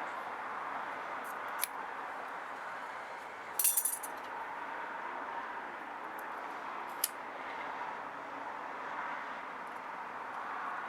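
Small metal objects clinking and rattling in a brief jingle about four seconds in, with single sharp clicks a couple of seconds before and after it, over a steady background hiss.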